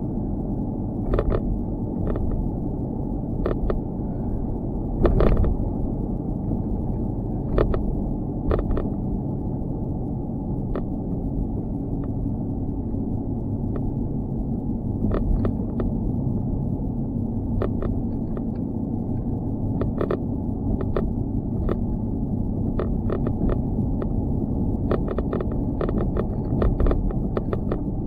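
Loose GoPro camera mount knocking and rattling in irregular sharp clicks, some in quick clusters, over a steady low muffled rumble.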